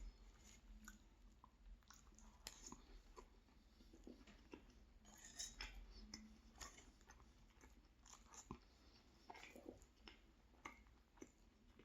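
A person chewing a mouthful of food close to the microphone: faint, irregular wet clicks and soft crunches.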